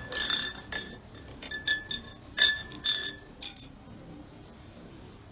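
A run of light, glassy clinks, about eight strikes over the first three and a half seconds, each ringing briefly at the same high pitch, then only faint background.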